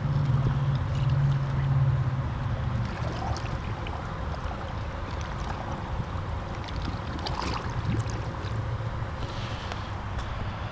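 Pool water sloshing and gurgling as the Polaris 9550 robotic pool cleaner sinks back into the pool, with a low hum in the first few seconds and again near the end.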